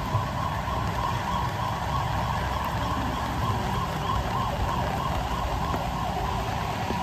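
Steady rain ambience outdoors: an even hiss over a low rumble, with no distinct events.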